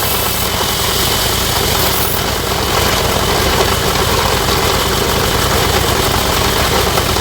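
Sawmill machinery running steadily, with an engine-like drone and a fine regular pulsing underneath.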